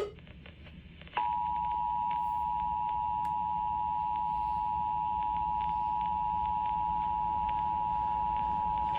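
Emergency Alert System two-tone attention signal on a radio broadcast, announcing a tornado warning. A steady dual tone, about 853 and 960 Hz sounded together, starts about a second in, holds for roughly eight seconds and cuts off near the end.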